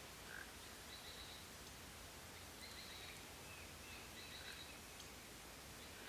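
Faint high-pitched bird calls over a steady background hiss: a short note repeated about every second and a half, with a few softer gliding chirps between.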